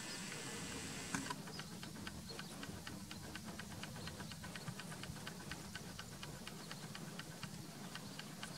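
A faint, regular ticking, a few ticks a second, over a low steady hum, starting after a single click about a second in.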